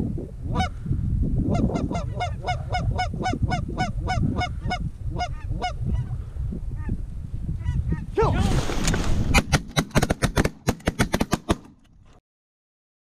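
Canada geese honking, many short calls in quick succession, over a heavy wind rumble on the microphone. About eight seconds in there is a rushing noise, then a fast run of sharp clicks, and the sound cuts off suddenly near the end.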